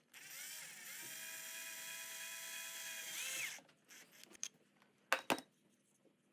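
Homemade drill press with a 775 DC motor spinning up and running with a steady whine for about three and a half seconds, then stopping. A couple of sharp clicks follow about five seconds in.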